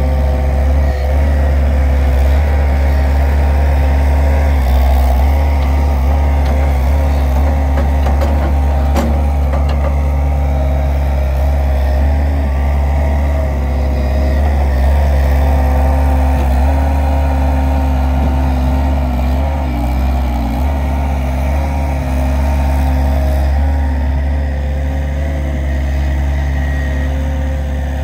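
Avant 640 compact loader's diesel engine running steadily while the loader scoops and tips manure, with a deep hum and a slight waver in pitch as the loader works.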